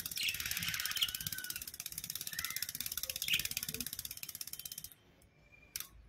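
Caged budgerigars chirping a few times over a fast, even, high-pitched rattle that cuts off suddenly about five seconds in.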